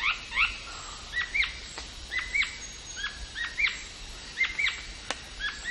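Birds chirping: short, arched chirps repeating a few times a second and overlapping one another, over a faint steady hiss.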